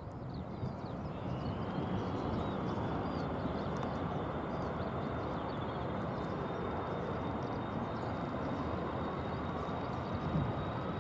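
Jet airliner engines running with a steady rush. A thin turbine whine rises over the first two seconds and then holds steady.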